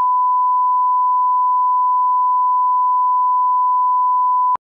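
A steady, single-pitch 1 kHz reference test tone, the line-up tone that goes with television colour bars. It cuts off abruptly near the end.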